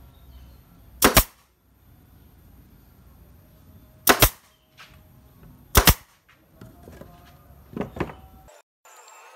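Brad nailer firing nails into the thin pine slats of a lantern frame: three sharp bangs a couple of seconds apart, each a quick double crack, then two lighter ones near the end.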